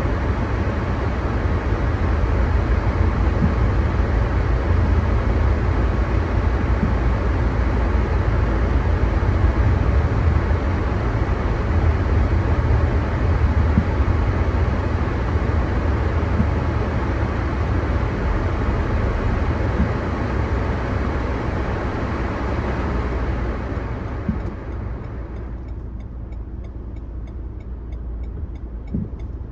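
Car driving on a rain-soaked road, heard from inside the cabin: a steady low rumble with the hiss of tyres on wet tarmac. About 24 seconds in the hiss dies away and the sound grows quieter as the car slows to a stop.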